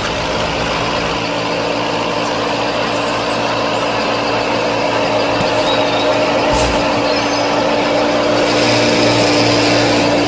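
Small motor running steadily with an even hum, with one brief low bump about two-thirds of the way through.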